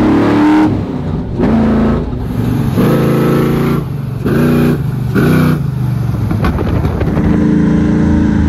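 Ford F100 trophy-truck race engine accelerating hard, its revs climbing and dropping off again several times in quick pulls, then holding steadier near the end.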